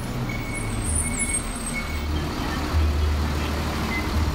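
City bus engine running at a stop, a steady low rumble that swells a little past the middle.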